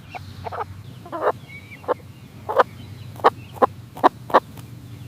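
A domestic hen clucking: a series of about nine short, separate clucks at uneven intervals, over a steady low hum.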